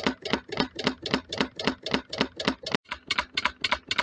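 Home-built alpha-type Stirling engine running slowly, its mechanism clonking about four times a second in a slightly uneven rhythm. The clonking comes from a bolt left loose.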